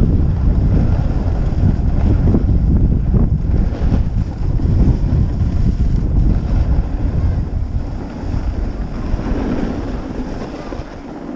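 Wind buffeting the microphone of a camera worn by a skier descending a groomed run, mixed with the hiss of skis on packed snow. The rumble eases off over the last few seconds.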